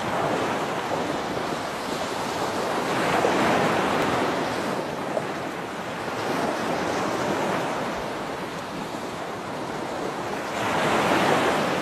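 Ocean waves washing, the sound swelling and easing every few seconds.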